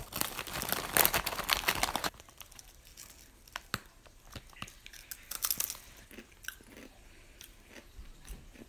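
Kettle-cooked potato chip bag rustling and crinkling for about the first two seconds, then a thick kettle-style chip bitten and chewed in a string of short, sharp crunches.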